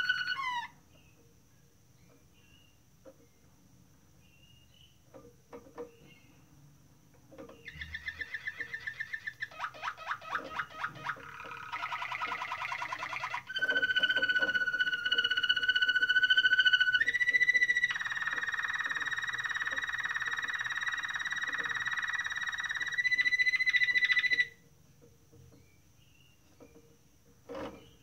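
Waterslager (Malinois) canary singing. A held whistle falls away at the start. After a pause of several seconds comes a song of separate tours: fast trills, bubbling rolls, a rough rattling passage, then long clear whistles. It stops abruptly after about seventeen seconds.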